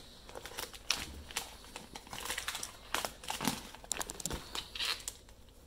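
Clear plastic processing bags around whole dressed poultry crinkling as a hand handles them, in irregular bursts of crackles.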